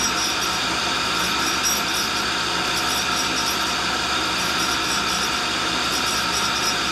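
Cincinnati No. 2 tool and cutter grinder running, with its motorized work head spinning a hardened lathe center against the grinding wheel as the center is ground true. The result is a steady grinding noise over the whine of the motors.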